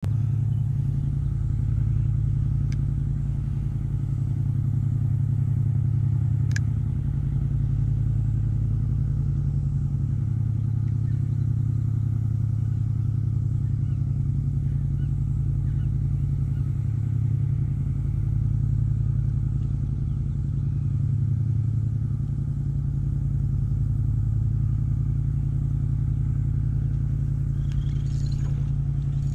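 A motor running steadily with a low, even hum, with two faint clicks in the first seven seconds.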